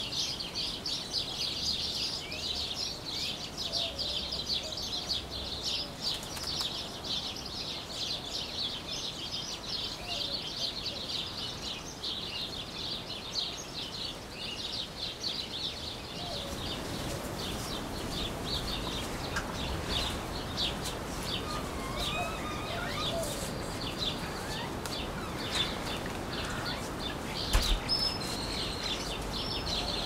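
Many small birds chirping and twittering together in a dense, rapid chatter of high chips, busiest in the first half. A few lower sliding calls come through later, and a single sharp knock sounds near the end.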